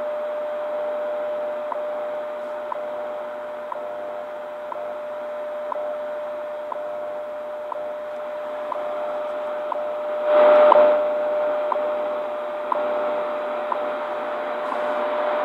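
WWV time-signal broadcast received on a Sony ICF-7600D shortwave radio: a steady tone with a short tick every second (the seconds pulses), over shortwave static. A brief louder burst about ten seconds in.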